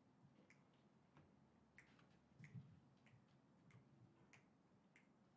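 Faint finger snaps, evenly spaced at a little under two a second, counting off the tempo before a jazz tune starts; otherwise the room is near silent.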